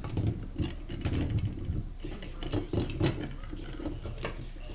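Irregular clicks, knocks and rubbing of metal parts and tools being handled against wood, as when working a home-made shock-absorber spring compressor of threaded rod, nuts and oak boards.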